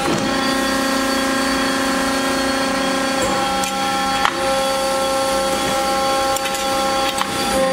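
Hydraulic drive of an Accurpress 100-ton CNC press brake running with a steady hum and whine as the ram travels down through a stroke. The note shifts about three seconds in, with a sharp click a little past four seconds and a few lighter clicks near the end.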